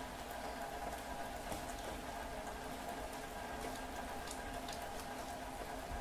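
Steady rain falling, with scattered single drops ticking through it.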